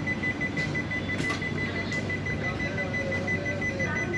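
Warning tone of a Tejas Rajdhani coach's automatic sliding door: a high, steady beep sounding as the door starts to slide shut, over the low hum of the stationary train.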